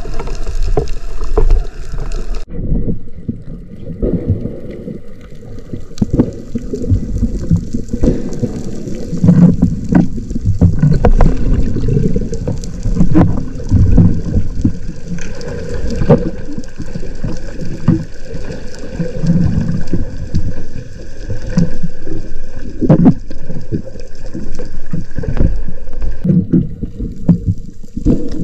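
Underwater sound picked up by a camera in its housing: muffled, low, rumbling water noise from the diver swimming and moving, with scattered short clicks and knocks.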